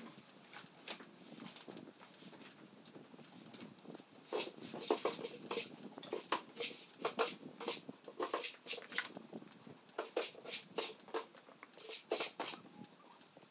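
Irregular light clinks and knocks around a horse standing in crossties as it is handled after a ride, growing busier about four seconds in.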